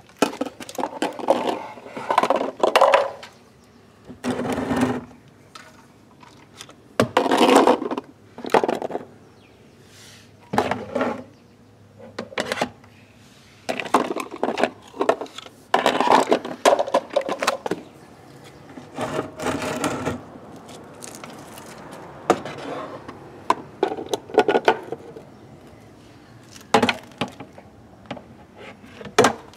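Small plastic toy wheelie bins knocking and clattering as a reacher grabber's jaws grip them and they are tipped against the rim of a larger plastic bin. The sound comes as irregular sharp knocks and short rattling bursts with quieter gaps between.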